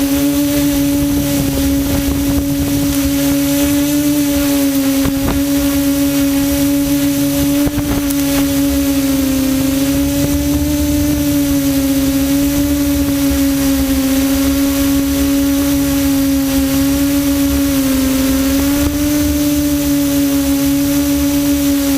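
QAV400 quadcopter's motors and propellers humming steadily in flight, the pitch dipping and rising slightly several times as the throttle changes.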